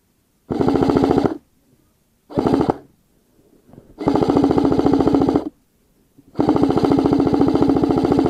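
Airsoft electric rifle (an ARES Amoeba AM-013 M4 Honey Badger AEG) firing full-auto in four bursts of rapid shots, the last two longer than the first two.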